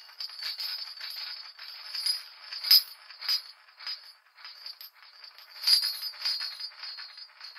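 Experimental noise-music texture: dense, irregular crackling and jingling clicks, all high-pitched with no bass, with a few louder clicks standing out, including one near the middle and one about three-quarters through.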